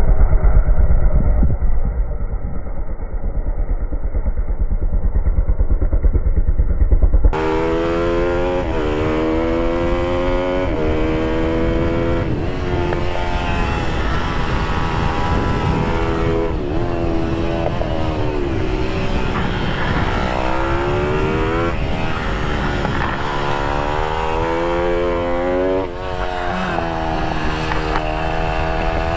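Pitbike engine running hard around a circuit: after a muffled stretch with a loud low rumble, the sound cuts about seven seconds in to a close onboard recording of the engine revving, its pitch climbing through each gear and dropping at shifts and corners, over and over.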